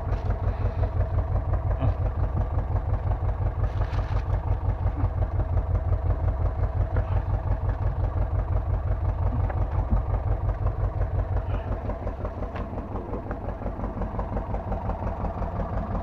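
Fishing boat's engine idling with a steady, even low throb, easing off slightly a few seconds before the end.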